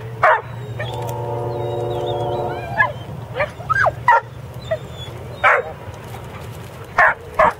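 Dog barking in short, sharp barks, about eight of them at irregular intervals, with a long steady droning tone from about a second in.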